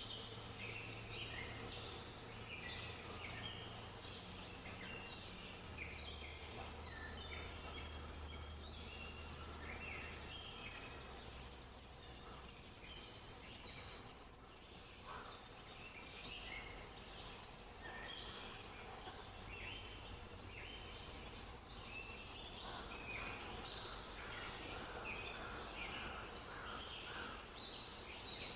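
Many small birds chirping and twittering together in a dense, continuous chorus of short high calls, over a faint steady low hum.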